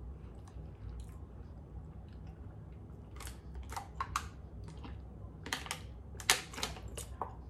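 Thin plastic water bottle crinkling and clicking in a hand as it is lifted and drunk from: a scatter of short, sharp clicks, mostly in the second half, over a low steady room hum.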